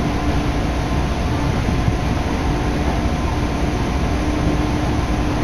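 Electric passenger train in motion, heard from inside the carriage: steady running noise of the wheels on the rails with a low steady hum.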